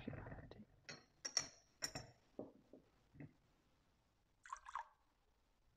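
Faint clinks and taps of altar vessels being handled, two of them with a short high metallic ring, then two short soft hissy sounds about four and a half seconds in.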